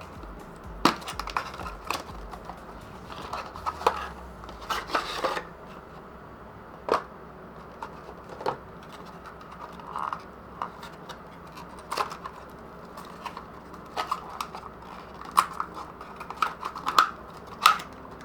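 Packaging being handled and opened: scattered sharp clicks and taps of plastic and cardboard, with a short stretch of crinkling about four to five seconds in.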